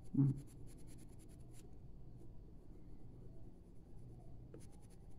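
Red coloured pencil stroked rapidly back and forth on drawing paper, a faint fine scratching that eases off in the middle and picks up again near the end. A short bit of voice comes right at the start.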